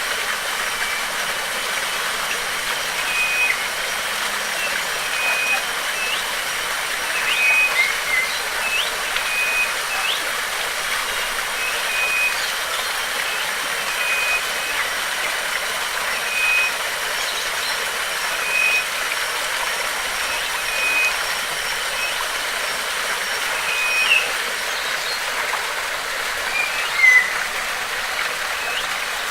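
Steady rush of flowing water, with a bird repeating one short high note about every second and a half and a few brief chirps over it.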